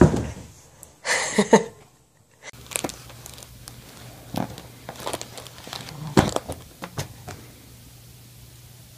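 A baby grabbing and handling a foil (mylar) birthday balloon: irregular crinkling and crackling of the foil for several seconds, dying away near the end as the balloon is let go. Before that, a thump and a short burst of voice as a toddler tips over backwards onto a carpeted floor.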